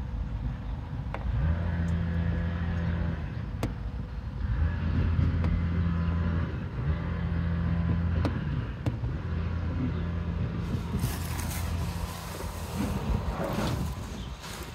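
Fingertips rubbing along a car's chrome window trim and rubber seal. Each stroke gives a low buzzing squeak lasting a second or two, with a few light taps in between. Near the end it gives way to a brighter rustling noise.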